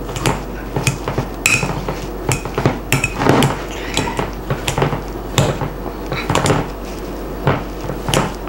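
Metal potato masher mashing boiled potatoes in a glass bowl, its metal knocking and clinking irregularly against the glass as it is pushed down, roughly once or twice a second.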